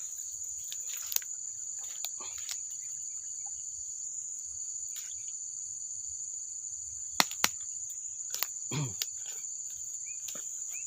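Steady high-pitched insect chorus, with a few scattered sharp clicks and knocks, two of them close together about seven seconds in.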